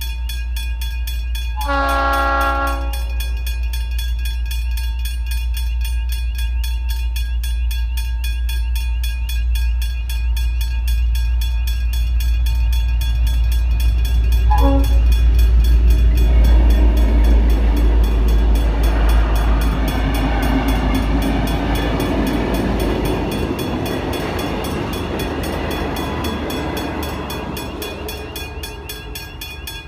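Level crossing bells ringing steadily while the N class diesel locomotive sounds its horn: a blast of about a second, about two seconds in, and a short toot about halfway. After the toot the noise of the oncoming train swells and then eases toward the end.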